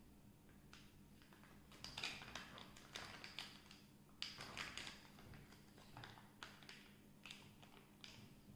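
Faint crinkling and crackling of a small plastic wrapper being handled and torn open by hand, in short irregular bursts, busiest about two and about four seconds in.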